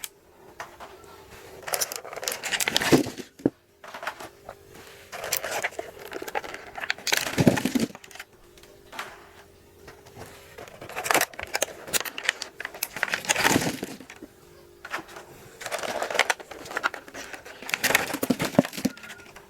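Wrapped Kinder Joy eggs rustling and knocking in repeated bursts as they are piled into a container, over faint background music.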